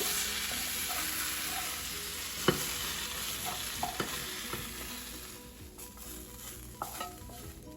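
Browned peppers and onions sizzling in a skillet, the sizzle fading away over the second half as the pan comes off the heat. A sharp clank about two and a half seconds in and a few light knocks of utensil on pan.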